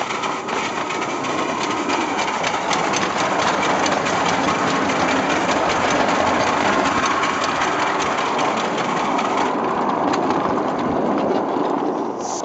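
7¼-inch gauge American-outline live-steam locomotive running along the track, a steady mechanical noise with many quick clicks. The noise fades away at the very end.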